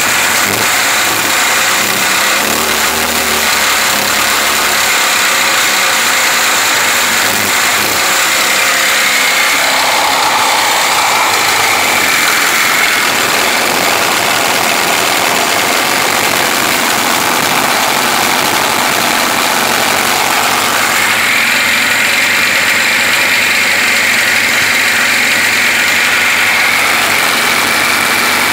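Sea-Doo 3D's two-stroke engine running steadily at low speed, heard close up in the open engine bay, with its pitch shifting slightly about ten seconds in and again past twenty seconds.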